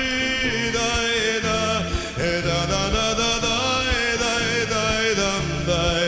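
Background music: a song between its sung lines, with repeating bass notes under a melody.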